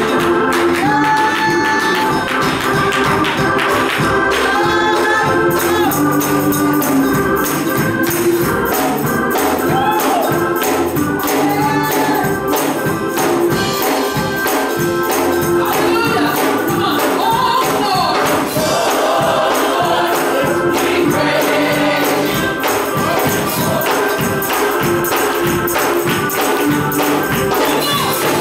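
Gospel choir singing with band accompaniment and a steady shaken tambourine beat.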